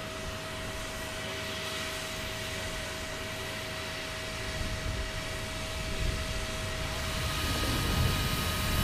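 D3-class steam locomotive standing in steam: a steady hiss with a steady whine running through it, growing louder near the end.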